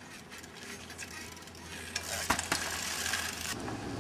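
Trials bike tyres crunching over loose gravel, louder from about two seconds in, with two sharp knocks close together.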